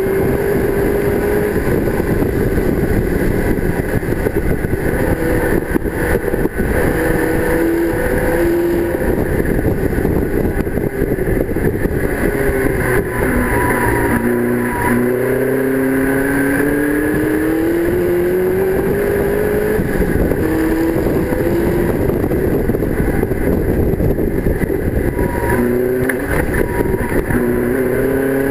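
TVR AJP 4.5-litre V8 racing engine heard from inside the cockpit at racing speed, its pitch climbing under acceleration and stepping down at gear changes. About halfway through it drops low as the car slows, then climbs again through the gears.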